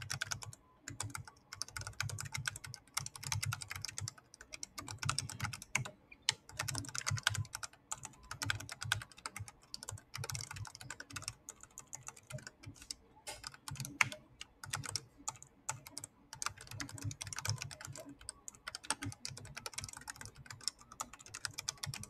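Typing on a Riskeyboard 70 hall-effect keyboard with 3D-printed magnetic separation switches and multi-material PETG keycaps with 1.35 mm walls: a fast, continuous run of key clicks broken by a few short pauses.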